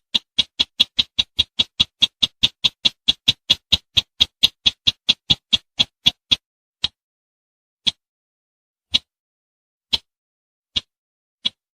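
Bush sintar bird calling: a fast series of short, sharp ticking notes, about five a second, that slows after about six seconds to single notes roughly a second apart.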